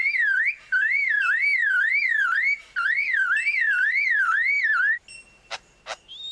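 Superb lyrebird mimicking a car alarm: a warbling electronic-sounding tone that rises and falls about three times a second, with two brief breaks. It stops about five seconds in, followed by two quick sharp whistled notes.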